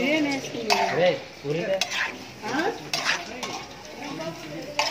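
Metal spoons and utensils clinking and scraping against steel dishes and pots, with several sharp clinks.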